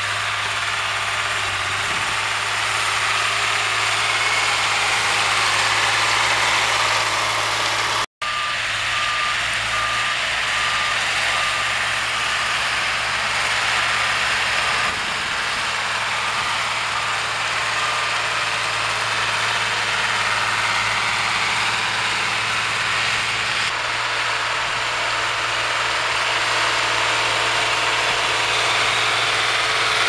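Zetor 11245 tractor's diesel engine running steadily under load, pulling a power harrow through the soil. The sound cuts out for an instant about eight seconds in.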